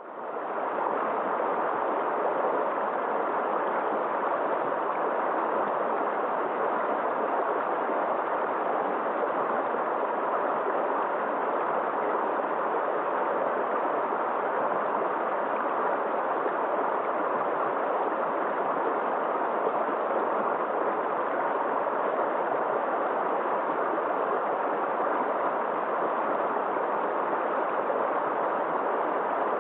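Steady rushing, gurgling water, even and unbroken throughout.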